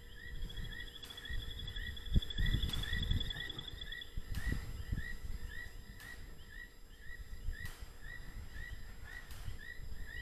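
A night chorus of short chirps repeating two to three times a second, with a fast high trill for the first four seconds. Underneath, irregular low thuds and rustling from elephants shuffling and feeding in straw, the sharpest thud about two seconds in.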